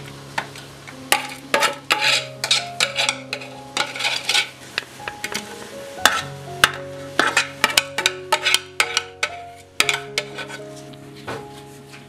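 A metal spoon scraping and knocking against a steel pan as cooked vegetables are scraped out onto a steel plate, in many sharp, irregular clinks, over background music of held notes.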